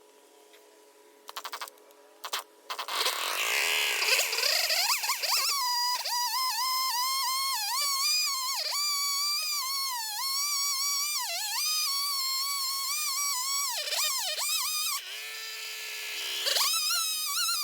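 Jonsered 670 chainsaw on an Alaskan chainsaw mill cutting a walnut log: after a few quiet seconds it revs up with a rising whine and runs at high revs, its pitch dipping again and again as the cut loads it. Near the end it drops to a lower steady note, then revs up again.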